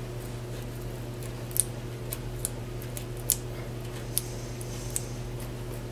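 Light, sharp metal clicks, about six over a few seconds, as a screw extractor and the broken bolt stub on it are handled and turned by hand, over a steady low hum.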